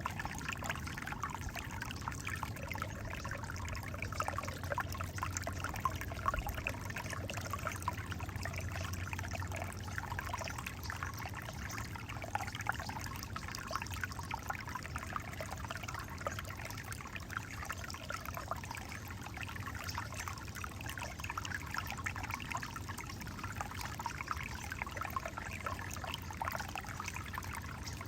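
Alpine Creek, a small stream, trickling and gurgling steadily over rocks.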